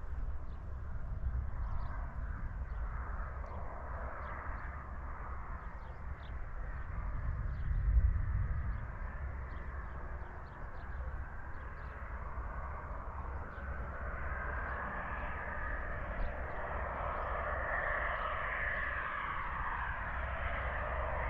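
Turbofan noise of a Pilatus PC-24 business jet on approach, a rushing sound that grows louder over the second half as the jet nears. Wind buffets the microphone, with a strong gust about a third of the way in.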